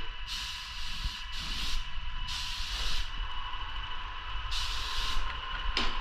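Paint spray gun hissing in four short bursts as the trigger is pulled and released, each under a second, over a steady machine whine.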